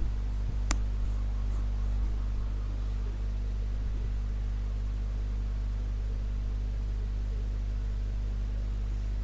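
Steady electrical hum with a stack of even overtones and a faint hiss, with one sharp click about a second in.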